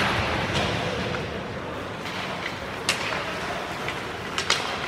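Ice hockey play: a steady hiss of skates on the ice and arena noise, with a few sharp clacks of sticks and puck, one about three seconds in and two close together near the end.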